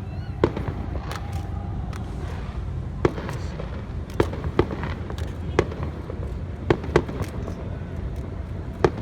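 Fireworks display: about eight sharp bangs of bursting aerial shells at uneven intervals, over a steady low rumble.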